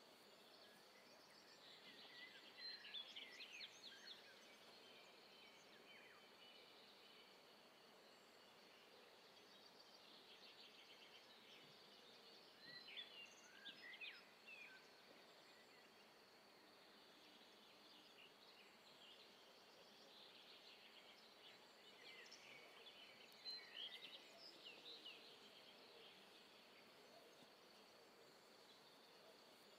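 Near silence: faint outdoor ambience with three short spells of faint bird chirping, about two seconds in, around thirteen seconds and around twenty-three seconds, over a faint steady high hum.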